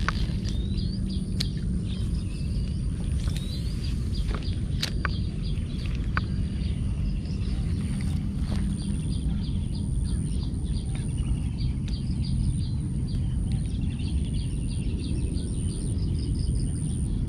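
Outdoor pond-bank ambience: a steady low rumble with a constant high-pitched insect drone. Birds chirp now and then, and a fast run of short high ticking calls comes in the second half. A few sharp clicks stand out.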